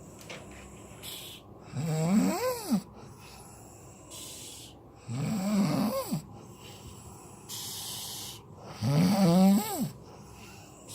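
A sleeping person snoring: three loud snores, about every three and a half seconds, each rising and then falling in pitch. Quieter hissing breaths come between them.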